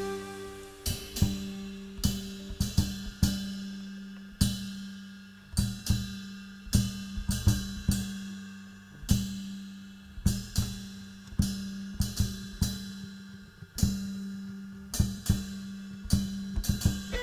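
Drum kit played in a sparse passage: cymbal and drum strikes at uneven intervals, each ringing out and dying away, over a steady low held note.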